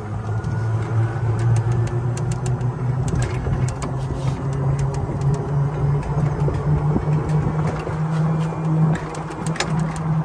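Electric six-passenger golf cart driving and picking up speed: a steady low hum that slowly rises in pitch, over tyre and wind rumble, with scattered light clicks.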